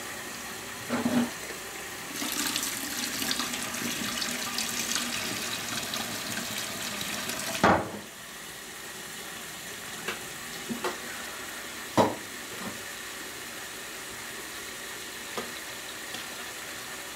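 Kitchen tap running cold water into a metal pot of parboiled cauliflower at the sink, to stop it cooking: a steady hiss of water, louder for the first several seconds. A sharp knock about halfway through, after which the flow is quieter, with a few light clinks.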